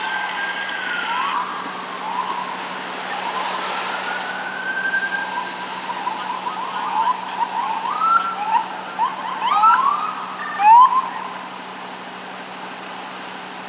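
Emergency vehicle siren: a slow rising-and-falling wail, then quick short yelps and chirps that cut off about eleven seconds in.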